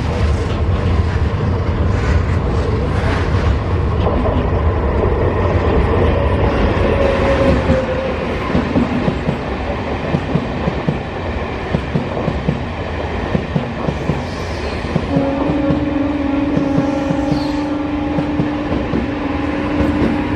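Passenger train passing close by at speed: a heavy rumble, then a steady clickety-clack of wheels over rail joints. About fifteen seconds in, a steady tone joins the clatter.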